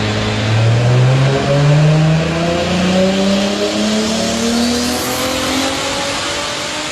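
Toyota Supra making about 820 wheel horsepower, its engine pulling at full load on a chassis dyno. The pitch climbs in steps for about five seconds and the loudness eases off near the end.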